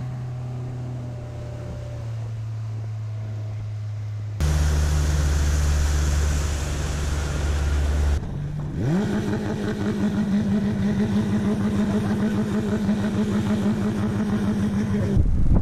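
Outboard motor running at speed. In the middle section the drone is louder, with rushing wind and spray. About a third of the way through, the engine climbs in pitch as it accelerates, then holds a steady higher drone.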